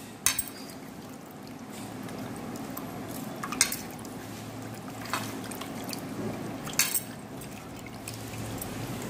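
Hands swishing cut fish pieces around in a metal bowl of water, with a few sharper splashes.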